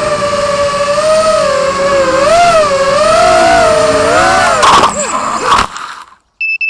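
QAV210 racing quadcopter's Emax RS2205 2300kv brushless motors and three-blade props whining, the pitch rising and falling with throttle. About five seconds in come two sharp knocks, the motor sound dies away, and a short high electronic beep sounds near the end.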